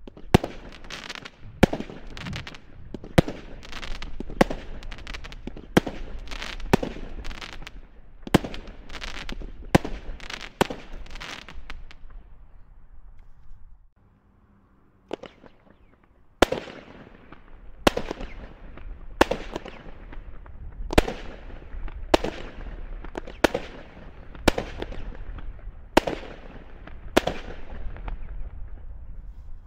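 Two consumer firework cakes, the Torch and then the Slinger, each firing a string of aerial shots. The first gives a quick run of sharp bangs, about one every second or less, that dies away after about twelve seconds. After a short lull the second fires a steady series of bangs about one every 1.2 seconds, each trailing off in a fading tail.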